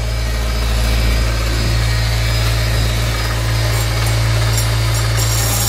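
Handheld oscillating multi-tool with a flat scraper blade running steadily as it cuts and scrapes along a seam in a fibreglass boat hull, with a constant low hum under a raspy grinding.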